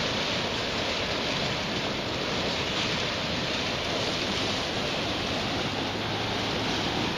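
Fast-flowing floodwater rushing and surging over a concrete walkway edge, a steady wash of water noise at an even level.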